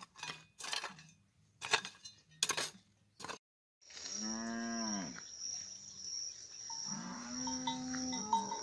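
A hoe chopping into stony soil, about five sharp strikes. After a cut, cattle moo twice, with a steady high insect buzz behind them.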